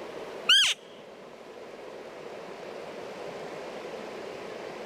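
A cow elk mew: one short, high call that rises and then slides down, about half a second in, the loudest sound here, over a steady rushing background noise.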